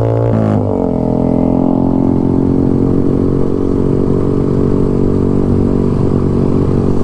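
Motorcycle engine held at high revs, its pitch dropping sharply about half a second in as it goes past or eases off, then settling into a steady lower running note.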